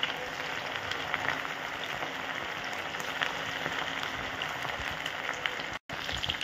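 Masala-marinated chicken pieces deep-frying in hot oil in a kadai: a steady crackling sizzle with small pops, cut off briefly near the end.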